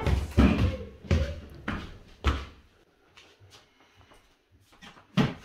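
Footsteps thudding up a staircase, about two steps a second, stopping after about two and a half seconds; then a few light knocks and one more thump near the end.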